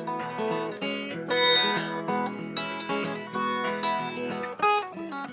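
Acoustic guitar strumming chords in the closing instrumental bars of a folk song, with a bright, sharp strum shortly before the end.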